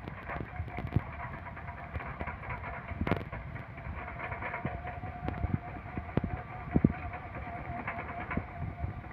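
Large hydraulic excavator working, its engine running under a steady high whine, with scattered metallic knocks and clanks.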